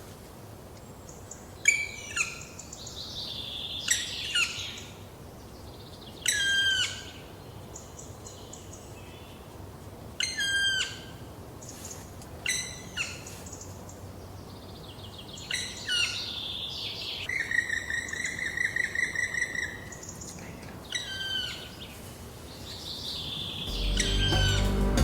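Bird calls: short, sharply falling notes repeated about every two seconds, with buzzier calls between them and a rapid chattering series of notes a little past the middle. Music fades in near the end.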